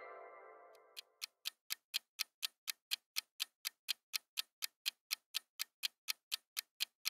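Clock-tick countdown sound effect: even, sharp ticks about four a second, starting about a second in. At the start, a ringing tone from the previous sound effect fades out.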